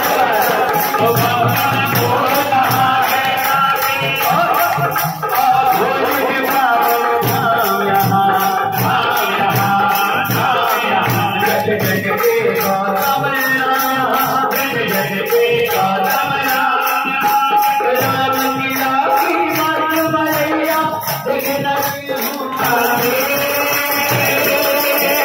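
Live Hindu devotional bhajan music: a wavering melody over hand-drum beats and jingling percussion, with people clapping along.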